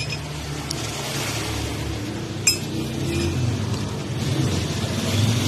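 Metal spoon clinking a few times, with a short bright ring after each strike; the loudest clink comes about two and a half seconds in.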